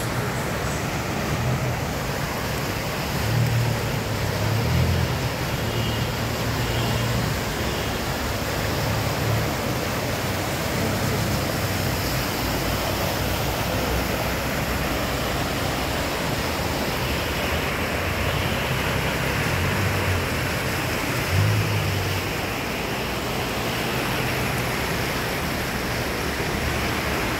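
Floodwater rushing across a road surface, with cars driving through it and throwing up spray: a steady rushing wash, broken by a few louder low rumbles.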